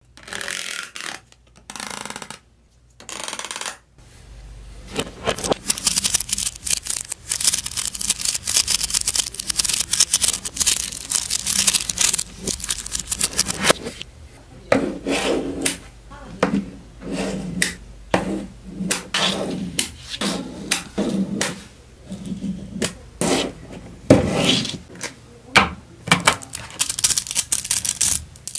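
Small neodymium magnet balls clicking and clattering as they are handled, snapping onto one another in quick runs of tiny clicks, dense at first and then in separate clusters.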